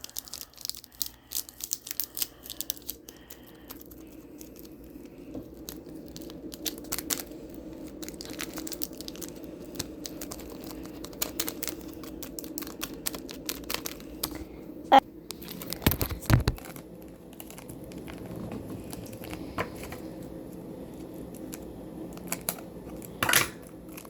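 Crinkling and scattered light clicks from handling the slime kit's plastic packaging and glitter container, over a faint steady low hum. A sharp click comes about midway, with a low thump just after it.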